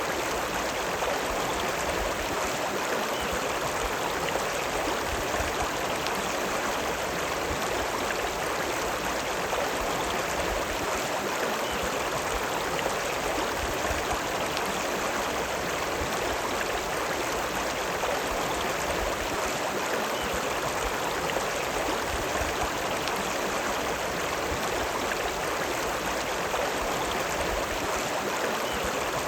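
River running: a steady, even rush of flowing water.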